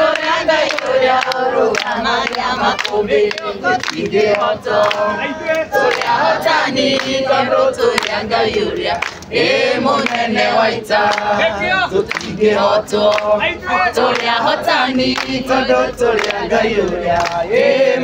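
A crowd of men and women singing together, with hands clapping along in time.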